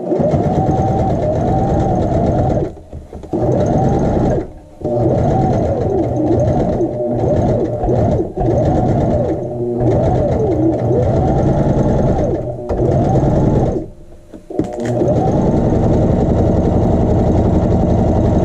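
Electric domestic sewing machine stitching a seam through cotton fabric, run in spurts: the motor speeds up and slows down, rising and falling in pitch, and stops briefly about half a dozen times as the sewer pivots and repositions the fabric.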